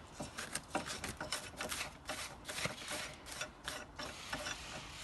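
Irregular metal clicking and scraping from the fork's steering-head parts as the retaining nut is worked off and the fork is taken out.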